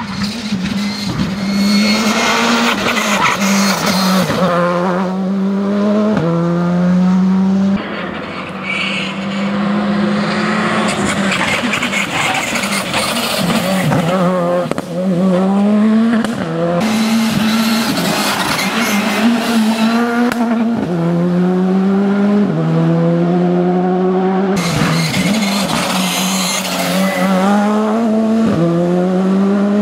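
Rally car engine driven hard, its revs climbing and then dropping at each gear change, over and over.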